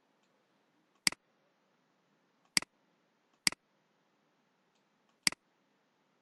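Computer mouse button clicked four times at uneven intervals, each a sharp click heard as a quick press-and-release double snap.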